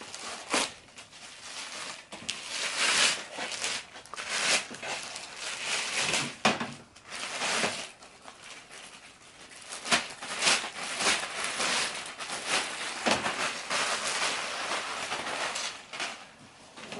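Rustling and crinkling with scattered sharp clicks and knocks: parts being handled on a workbench.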